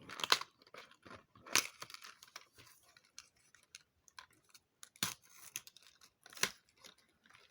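Small plastic foil wrapping crinkling and tearing in the hands as a piece of costume jewellery is unwrapped, with a few short sharp rustles among quieter handling noise.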